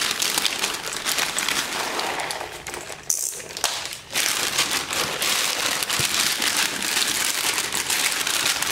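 Plastic carrier bag and packing tape crinkling and rustling as the bag is handled and pulled open by hand, with a short lull a little before the middle.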